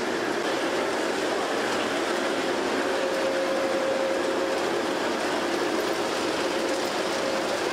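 G-scale model train running on its track, a steady rolling clatter of its wheels on the rails, with a faint steady whine for a few seconds in the middle.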